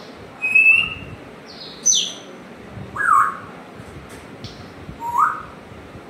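African grey parrot whistling and chirping, a string of short calls about a second apart, some sliding down in pitch and one sliding up.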